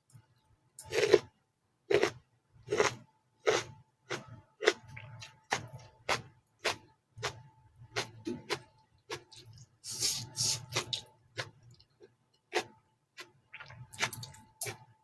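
Close-miked chewing and mouth sounds of someone eating fried noodles (mie goreng): wet smacking clicks about once a second or a little faster, with a longer, hissier sucking or slurping noise about ten seconds in.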